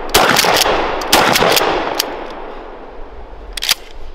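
Two pump-action shotgun shots about a second apart, each with a long rolling echo, with quick clacks of the pump being racked after each shot. A few lighter clicks come near the end.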